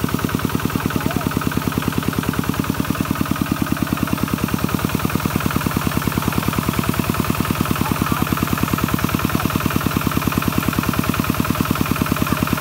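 Kubota walking tractor's single-cylinder diesel engine chugging with a fast, even beat under load, its drive wheel spinning in deep mud and water and throwing up spray.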